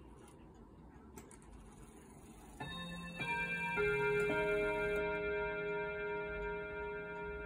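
1932 Hamburg American Clock Company (HAC) no. 895 dual-chime tambour mantel clock ticking softly, then, about two and a half seconds in, sounding its quarter-hour chime. The chime is four struck notes about half a second apart that ring on. It was set off by the minute hand being moved to the quarter hour.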